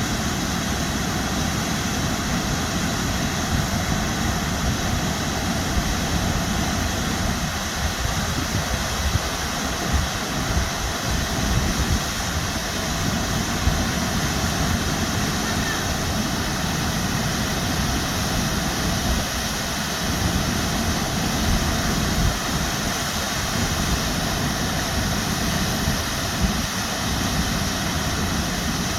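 Waterfall rushing steadily, a loud unbroken noise with a low rumble that wavers irregularly.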